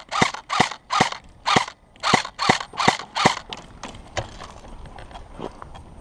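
Airsoft gun firing a quick string of single shots, about two or three a second, that stops about three seconds in; a few faint clicks follow.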